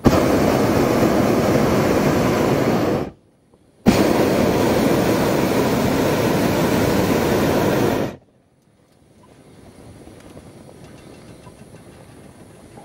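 Hot-air balloon's propane burner firing in two long blasts, about three and four seconds long, with a short break between them before it cuts off.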